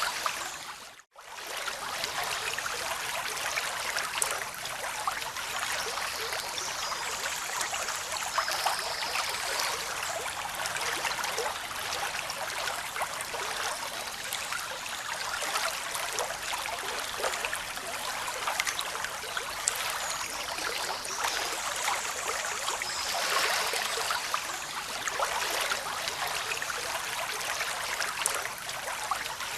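Running water, a steady rushing and trickling with fine splashing detail. It cuts out for an instant about a second in, then carries on unchanged.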